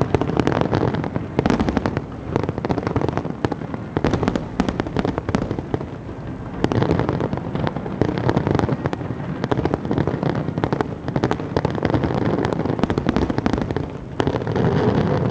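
Aerial firework shells bursting in rapid succession, a dense barrage of bangs and crackles with no let-up.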